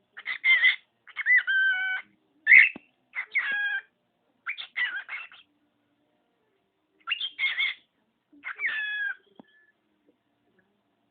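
A cockatiel vocalizing in seven short, pitched phrases, with a pause about halfway through.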